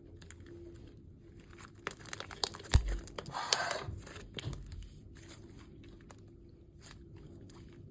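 Slime being kneaded and squished by hand, a hard slime being worked into a soft butter-like slime: sticky crackles and small pops, busiest in the middle, with one soft thump a little under three seconds in.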